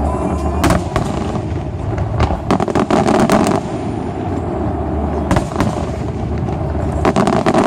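Aerial fireworks shells bursting at a distance, one sharp report after another, with a quick run of many bangs in the middle and more near the end.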